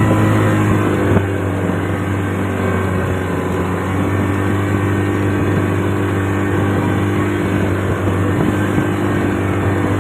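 Boat engine running at a steady speed, a low drone that eases slightly about a second in.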